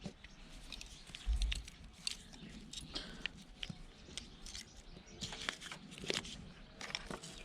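Hand tools working at the components of a small circuit board: scattered sharp clicks and small crunches, with a dull low thump about a second in.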